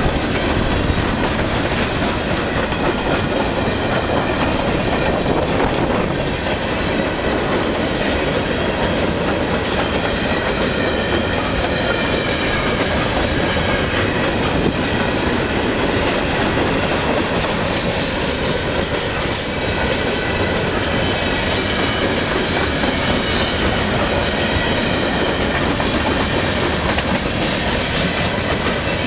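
Freight cars rolling past at close range: a steady rumble of steel wheels on rail, with clicking as the wheels cross the rail joints.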